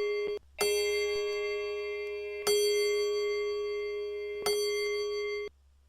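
Clock chime striking the same bell note three times, about two seconds apart, each stroke ringing on until the next; the ringing stops abruptly about five and a half seconds in.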